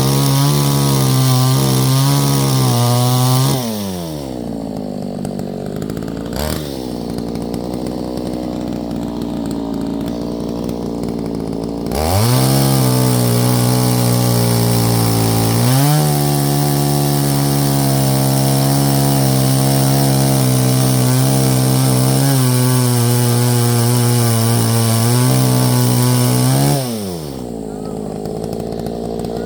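Two-stroke chainsaw cutting firewood, running at full revs under load, then dropping to idle about four seconds in. After a brief blip of throttle it revs back up at about twelve seconds for a long cut, and falls back to idle near the end.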